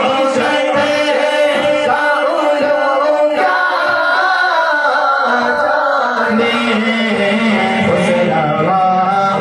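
Male voices singing an Urdu naat (devotional praise poem) into microphones, amplified over a sound system.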